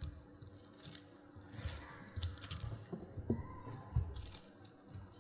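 Soft rustling of paper with scattered small clicks and a few low knocks: Bible pages being turned as a congregation looks up a passage.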